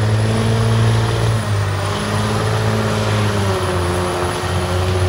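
Semi log truck's diesel engine working hard under load as it drags a truck-pull weight-transfer sled, a steady low drone that dips slightly in pitch about three and a half seconds in.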